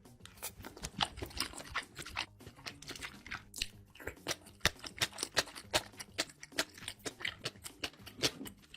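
A person chewing and biting food up close to the microphone, a dense irregular run of short sharp smacks and crunches.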